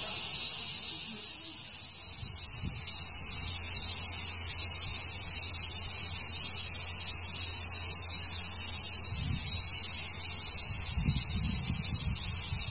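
Cicadas droning in a steady, high-pitched chorus.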